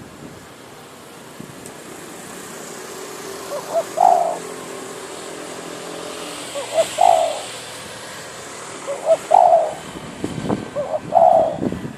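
A decoy spotted dove cooing: four phrases, each one or two short notes running into a longer coo, about every two to three seconds from about four seconds in.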